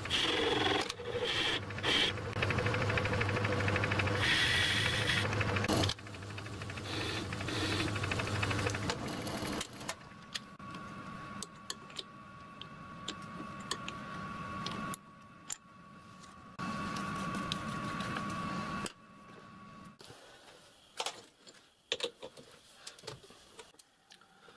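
Metalworking lathe running with the chuck spinning, cutting a steel chuck adapter, a steady machine hum. After about ten seconds it gives way to quieter metal clicks and taps as chuck jaws and small turned parts are handled by hand.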